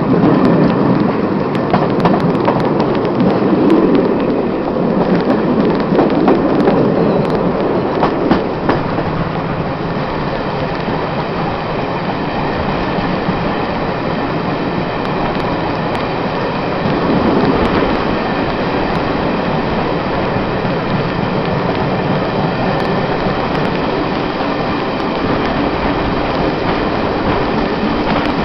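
Locomotive-hauled passenger train, with Class 47 diesel 47853 at the head, running along the track as heard from on board: a continuous rumble of wheels on rails. A run of sharp clicks comes in the first nine seconds or so, after which the running noise is steadier.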